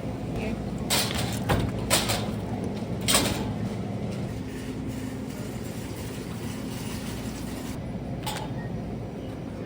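Semi-truck engine running with a steady low hum, with several sharp knocks and clatters in the first three seconds and one more near the end.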